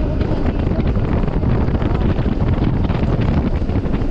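Wind buffeting a helmet or action-camera microphone over a motorcycle's engine running at a steady cruise, with the tyres crunching and bumping over a rough dirt road.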